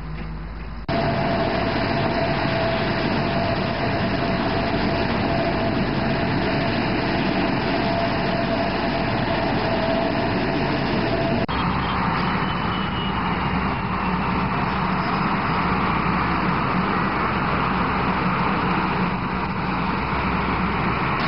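Loud, steady engine noise with a thin steady whine through the first half. The sound changes abruptly twice, at edit cuts about a second in and about eleven seconds in.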